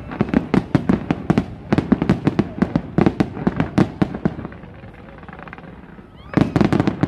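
Fireworks display: a rapid volley of shells bursting with sharp bangs and crackle for about four seconds, then a short lull, then another quick cluster of bangs near the end.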